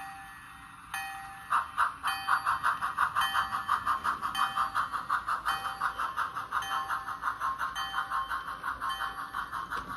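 Model steam locomotive's onboard sound system playing a ringing bell, struck about once a second, and from about a second and a half in a steady chuff of roughly three to four beats a second as the engine runs along the track.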